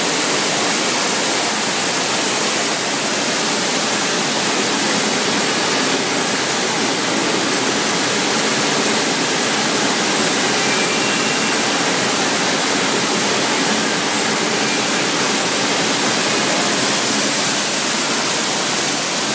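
Industrial crate washer running with its rotary drum filter: a steady, loud rush of water with no break.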